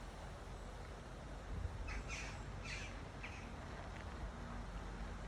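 A bird calls three times in quick succession, over a steady low background rumble.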